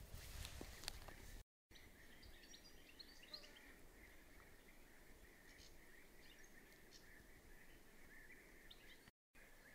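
Faint forest ambience: a steady high-pitched hum with a few bird chirps about three seconds in. There is some soft rustling in the first second and a half, and the sound drops out completely twice for a moment.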